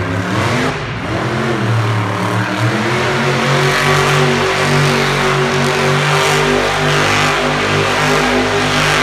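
Monster truck engine revving up in the first second, then held at high revs as the truck spins on the arena dirt, throwing up dust.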